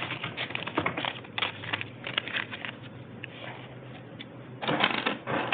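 Irregular light clicks and rustles, as of small items and bags being handled, with a denser flurry about five seconds in.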